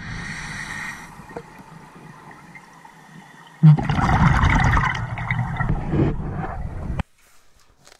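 Scuba diver breathing underwater through a regulator, heard through the camera housing: a brief hiss at the start, then a loud rush and gurgle of exhaled bubbles from about three and a half seconds in that cuts off suddenly about a second before the end.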